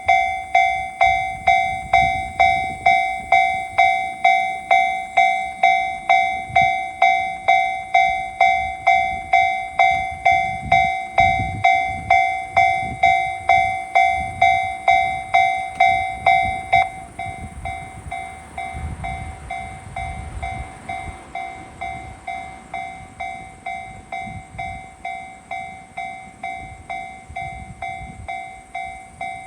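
Japanese railroad crossing alarm ringing its 'kan-kan' tone steadily at about two strikes a second, turning noticeably quieter about halfway through and carrying on. A low train rumble rises and falls beneath it.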